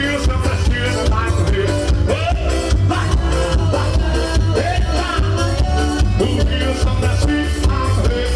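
Forró music with a singer over a steady, driving dance beat.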